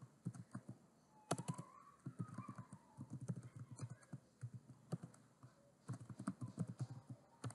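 Typing on a computer keyboard: a run of faint, quick keystrokes with a couple of short pauses.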